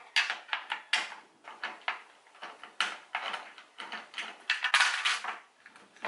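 Metal hand tool working the 10 mm bolts on a Nissan 350Z door: a run of irregular short metallic clicks and scrapes, with a longer scraping stretch about five seconds in.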